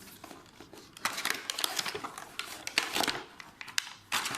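Packaging being handled and opened: crinkling and rustling with sharp clicks and taps, starting about a second in.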